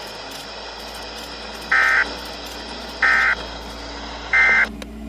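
NOAA Weather Radio broadcast sending the SAME end-of-message code: three short, identical bursts of digital data tones, about a second and a quarter apart, that mark the end of the Required Weekly Test.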